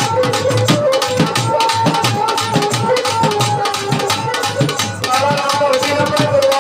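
Folk instrumental music: a bowed string instrument plays a wavering, ornamented melody over a steady rhythm of hand-drum strokes.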